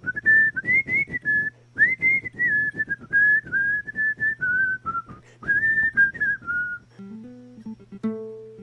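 A whistled melody, a single clear tone moving between notes in short phrases over a rhythmic accompaniment. About seven seconds in the whistling stops and an acoustic guitar begins picking notes.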